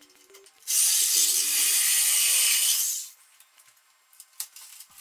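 Corded power saw running for about two seconds, starting under a second in and stopping abruptly about three seconds in, as it cuts through a nail holding an old door frame into the wall.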